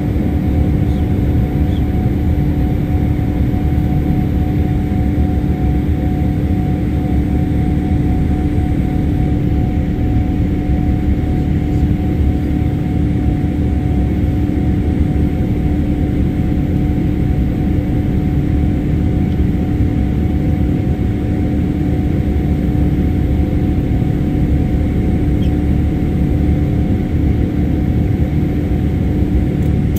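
Boeing 787-8 Dreamliner jet engine and airflow heard inside the passenger cabin by a window over the wing: a loud, steady drone with a held hum running through it.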